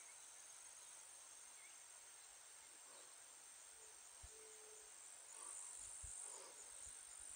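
Near silence with a faint, steady high-pitched chirring of crickets and other insects. A few soft low thumps come in the second half.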